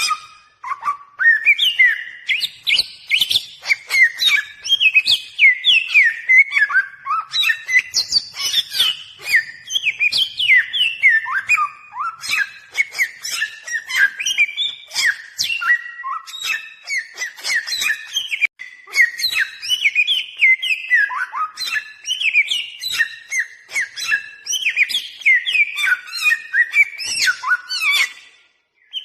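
Bare-throated whistler (samyong) in full, non-stop song: a fast, varied stream of clear whistled notes sliding up and down, broken only by a couple of short pauses.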